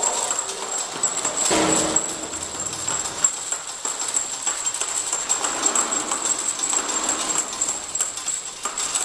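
Automatic vial-labeling machine running: a steady rapid clicking and rattling of small glass vials moving along the roller conveyor, over a thin constant high whine, with a short louder swell about a second and a half in.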